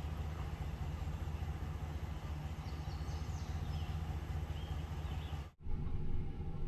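A heavy machine's engine running steadily, with faint bird chirps about three seconds in. The sound cuts out sharply about five and a half seconds in, then the engine comes back.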